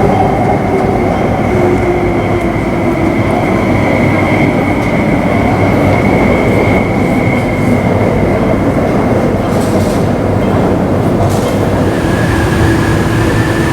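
MTR Tuen Ma Line IKK-train running, heard from inside the car: a steady rumble of wheels on the track with a steady high whine from the traction equipment that steps down in pitch near the end.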